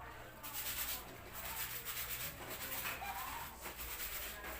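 Clothes being scrubbed by hand: rapid, repeated rubbing strokes of wet fabric against fabric.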